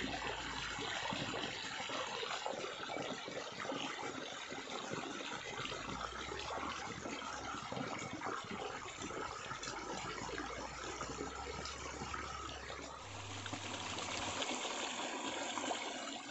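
Shallow muddy stream trickling and splashing as someone walks barefoot through and along it, a dense, irregular patter of small splashes and steps.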